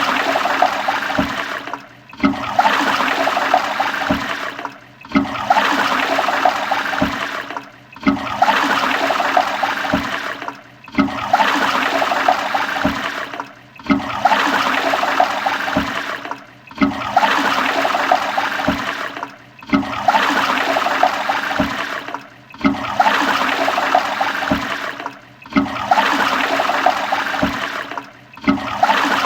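Toilet flushing: the same short rush of water repeats about every three seconds, each cut off by a brief gap before the next begins.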